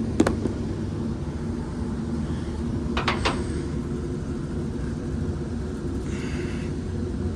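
Rooftop exhaust or make-up air fan unit running with a steady low hum. Sharp knocks come once just after the start and two or three times about three seconds in.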